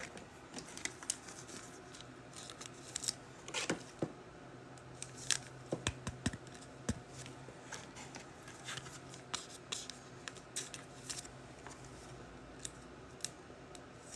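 Trading card packs being opened and handled: scattered short snips, crinkles and clicks of wrappers and cards.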